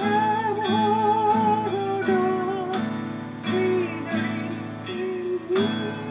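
Background music: guitar-led, with a sustained, wavering lead melody over evenly plucked notes.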